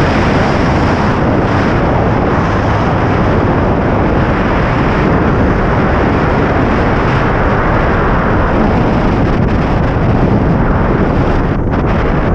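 Loud, steady wind rushing over a selfie-stick camera's microphone as a tandem paraglider flies.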